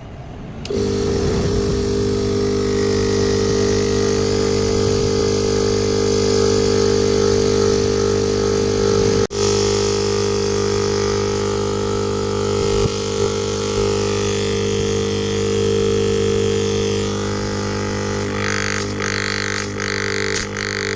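Refrigerator compressor running with a steady electrical hum, cutting in suddenly just under a second in. It breaks off for an instant about nine seconds in, and a few short rattles come near the end.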